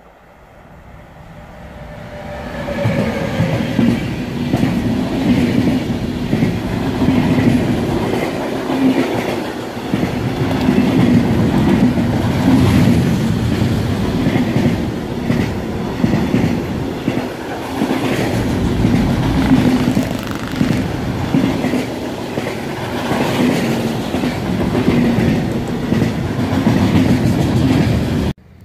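Electric-hauled intermodal freight train of pocket wagons carrying semi-trailers passing close by. It grows louder as the locomotive approaches, with a whine that falls in pitch as it goes by, then a steady rumble and rhythmic clatter of the wagons' wheels over the rails. The sound cuts off suddenly near the end.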